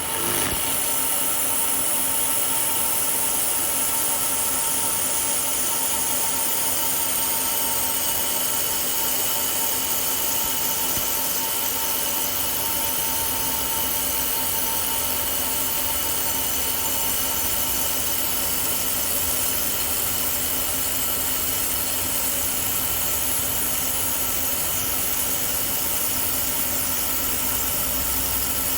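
A 1500 W air-cooled laser welding machine running, a constant whir and hiss with a few steady tones that hold unchanged throughout.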